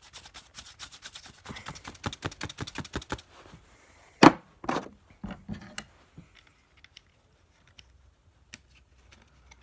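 Parts of a disassembled pump BB gun being worked by hand against a stuck mechanism: rapid clicking and rattling for about three seconds, then a loud sharp knock about four seconds in, a second just after and a few lighter knocks, then scattered small clicks.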